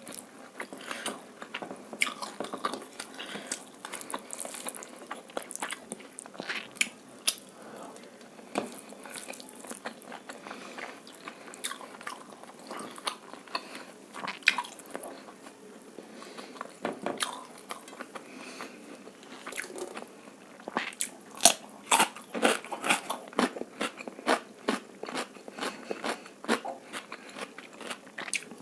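Close-miked eating of egg fried rice with chilli chicken: a continuous run of chewing with sharp, crunchy bites and wet mouth clicks. The bites come louder and closer together in the last third.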